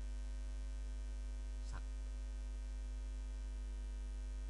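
Steady electrical hum in the recording with a strong low drone. A brief faint tick about a second and a half in.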